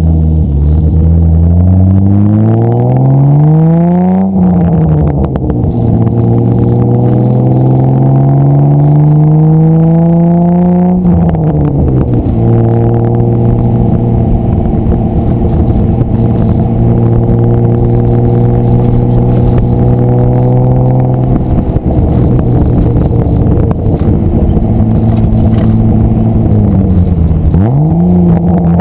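1990 BMW 325is straight-six (M20) running through a very loud custom exhaust with no catalytic converter while the car is driven. It pulls up through the revs, shifts up about four seconds in, pulls again until a second upshift about eleven seconds in, then cruises at steady revs. Near the end the revs ease off, dip sharply and climb again.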